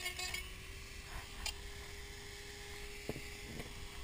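A handheld rotary tool runs with a steady tone. Its bit grinding against the inside of a helmet shell stops about half a second in, and the tool then spins free, with a few light clicks and taps.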